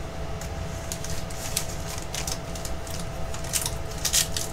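A trading card pack's wrapper crinkling and crackling as it is handled and torn open, in irregular bursts with the loudest near the end. A faint steady hum sits underneath.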